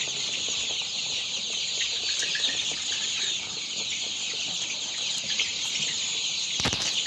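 A large flock of chickens calling continuously, many high chirps and clucks overlapping into a steady din. A brief knock sounds a little before the end.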